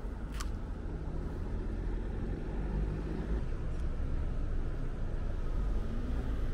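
City road traffic at an intersection: a steady low rumble of passing vehicles, a bus and cars, with a single sharp click about half a second in.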